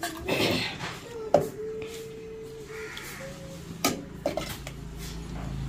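Metal ladle scraping and clinking against an aluminium cooking pot and a steel strainer while porridge is scooped and strained, with two sharp clinks about a second and a half apart. A brief steady tone sounds for about a second and a half.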